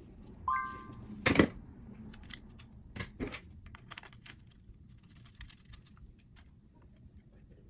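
Items being handled while unboxing: a brief high squeak, a sharp knock about a second and a half in, two more knocks around three seconds, then light scattered clicks and taps.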